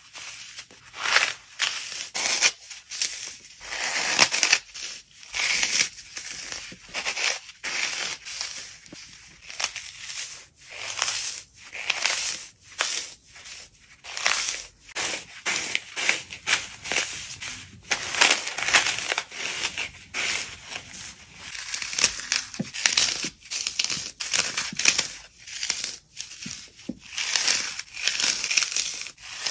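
Dry floral foam being squeezed and crushed by hand: crisp crunching and crumbling in quick irregular clusters, with short pauses between squeezes.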